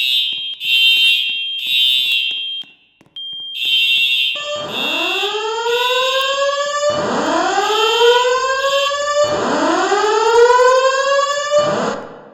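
Fire alarm voice evacuation system sounding its alert tone. It plays short high-pitched beeping pulses, then from about four seconds in three slow rising whoop sweeps of about two and a half seconds each. The pulses carry on underneath the whoops, and all of it cuts off just before the spoken evacuation message repeats.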